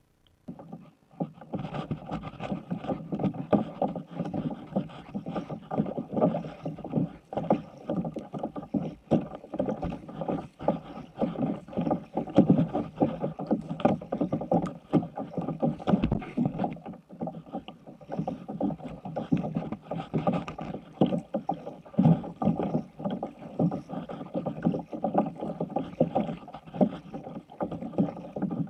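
Water splashing and slapping against the hull of a plastic sit-on-top kayak as it moves across choppy water. The sound starts about a second in and runs on unevenly, with many small splashes.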